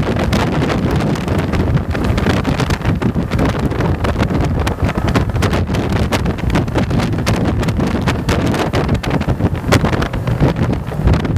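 Heavy wind buffeting on the microphone of a camera mounted on a moving motorcycle, a constant gusty rumble with the bike's engine running underneath.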